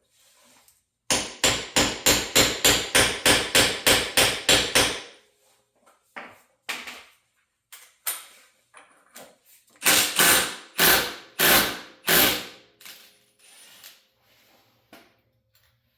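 Hammer blows struck in quick succession, about four a second for some four seconds, then after a pause a second run of about five blows, with scattered small knocks and clicks of tools between.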